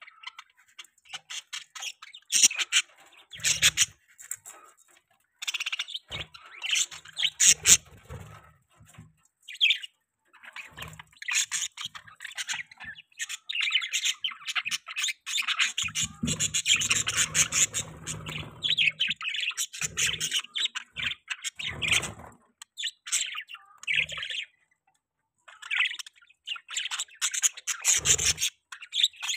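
Budgerigars chirping and warbling in quick, busy runs of short chirps, with a few squawks and brief pauses.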